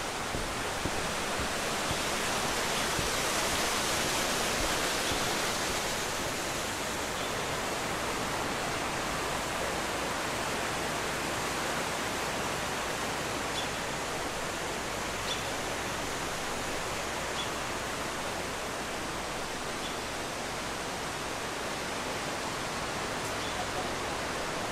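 Rushing river water: a steady, even roar that swells a little a few seconds in. A few faint short high ticks come through it midway.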